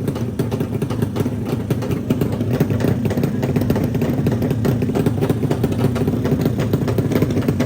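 Drag-race motorcycle engine running with a rapid, rough exhaust beat, a little louder from about two seconds in.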